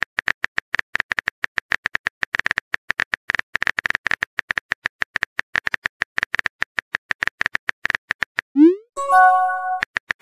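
Rapid phone-keyboard key-press clicks as a text message is typed, then a rising swoosh and a short steady chime as the message is sent, about nine seconds in, after which the typing clicks resume.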